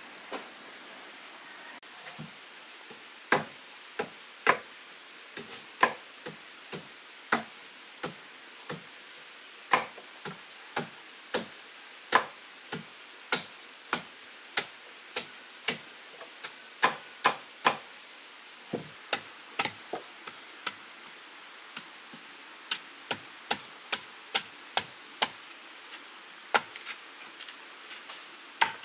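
Repeated sharp chopping blows of a blade on wood, unevenly paced at about one and a half a second, starting about two seconds in.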